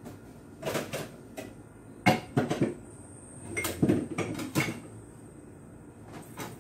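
Knocks and clatter of kitchen items being handled and set down at a kitchen sink, in three short clusters of sharp hits.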